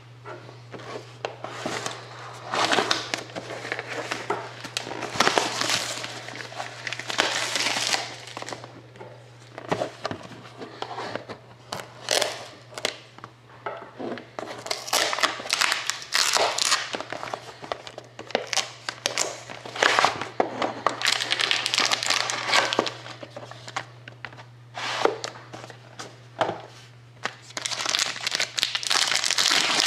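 Plastic wrapping crinkling and tearing as a sealed trading-card box is unwrapped and handled, in irregular rustling bursts over a steady low hum.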